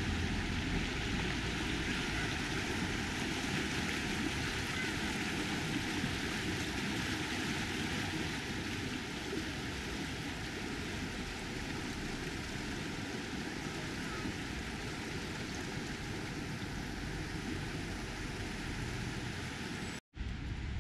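Steady rush of flowing water from a stream, cutting out abruptly near the end.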